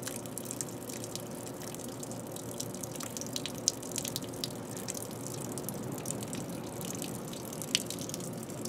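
A thin stream of water falling from beneath the engine and splashing onto wet pavement, with scattered sharper drip splashes.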